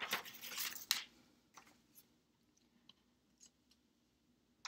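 A brief rustle lasting about a second, then room quiet broken by a few faint, scattered clicks.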